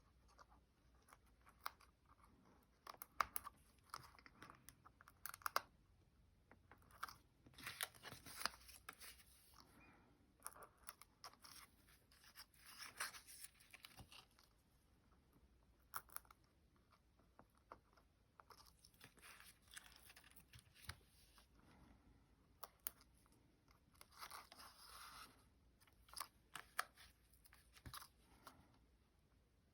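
Faint, scattered rustling, peeling and light tapping of paper and card as small black adhesive squares are peeled from their backing and pressed on.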